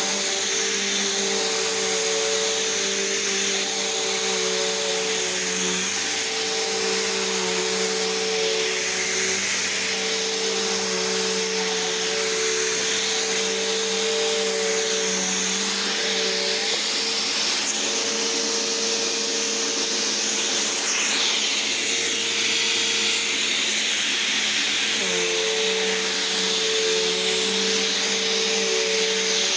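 Vacuum cleaner running steadily, its motor tone shifting slightly a few times.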